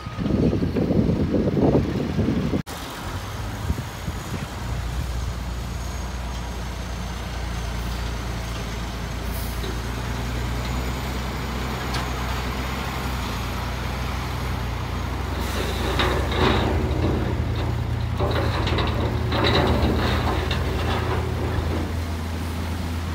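Diesel dump truck engines running steadily while the trucks tip soil, with a low, even hum. A louder rumble fills the first couple of seconds, and a rougher, noisier layer joins the engine twice in the second half.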